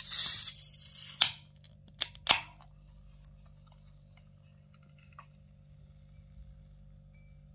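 Aluminium can of pale lager being opened by its ring-pull tab: a sudden pop and hiss of escaping carbonation that fades over about a second. Three sharp clicks follow, the metal tab being worked.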